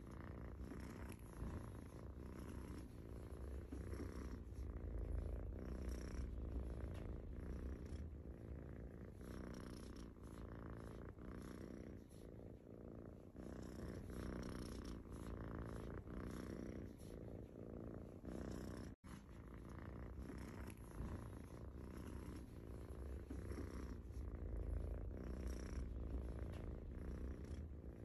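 A long-haired black-and-white cat purring continuously in a low rumble. The purr breaks off for an instant about nineteen seconds in.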